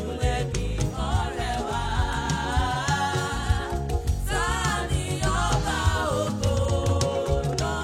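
Yoruba gospel music: voices singing over a steady beat with bass.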